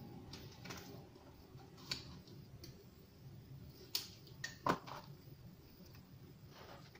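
Duct tape being worked by hand onto a concrete weight plate: scattered small clicks and crackles of tape handling, with a few sharper snaps about four to five seconds in.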